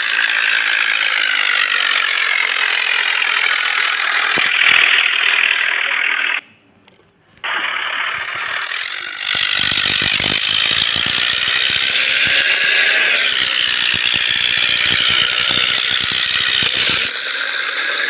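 Red plastic toy tractor pushed by hand over dry, stony soil: a steady mechanical whirring rattle of its plastic gears and wheels, with dense clicking through the second half. The sound breaks off briefly about six seconds in.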